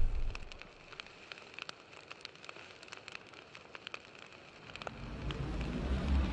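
Crackling fire-and-smoke sound effect of an animated logo outro: sparse sharp crackles over a faint hiss, trailing off from a loud boom at the start. A low rumble swells up near the end.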